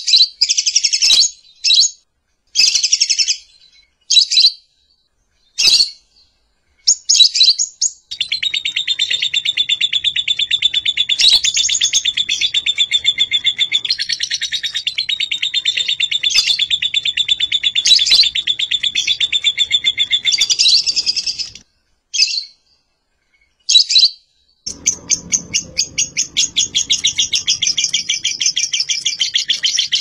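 Lovebird calling: a string of short, shrill chirps, then long runs of rapid, unbroken high-pitched chattering, with a brief break of a few single calls before the chatter starts again.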